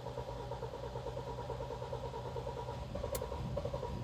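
Starter motor cranking the freshly rebuilt Kia Sportage G4KD 2.0 four-cylinder engine in an even, pulsing rhythm without it firing: the fuel rail has drained, so the engine does not catch yet.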